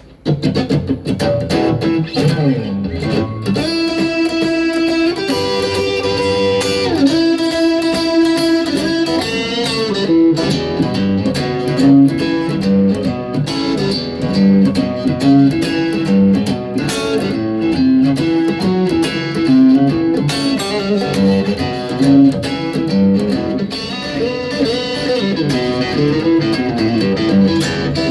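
Electric guitar played through a Boss GT-1000 Core multi-effects processor: long held, sustained notes, then a run of quicker notes.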